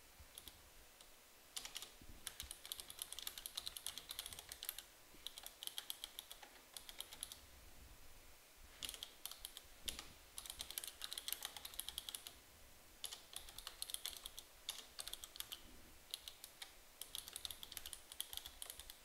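Typing on a computer keyboard: runs of quick keystrokes starting about a second and a half in, broken by short pauses.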